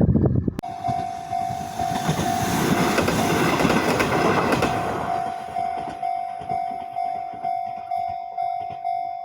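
Japanese railway level crossing's electronic warning bell ringing in an even ding-ding rhythm, a little under three dings a second. Under it a train passes over the crossing, its noise dying away about five seconds in while the bell keeps ringing.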